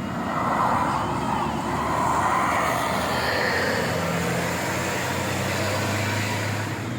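A bus driving past with engine and tyre noise that swells about half a second in, and a low steady engine hum in the later seconds.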